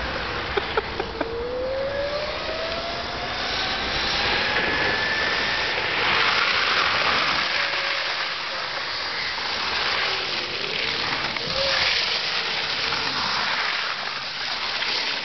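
Electric go-kart motor whining as the kart accelerates, its pitch climbing steadily for a few seconds, then dipping and rising again near the end. A rushing noise swells as the kart passes, and a few sharp clicks sound in the first second or so.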